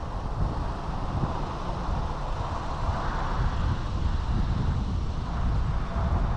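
Wind buffeting the microphone over a steady rumble of vehicle noise.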